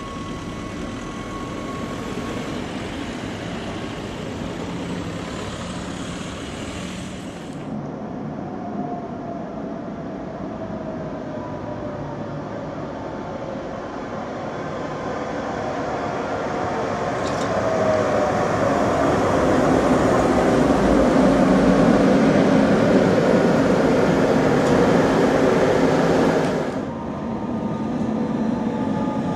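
Electric articulated trams running on street track: one running past at the start, then, after a cut, another approaching and passing close, growing louder with the wheel-and-rail rumble and a motor whine that slides down in pitch.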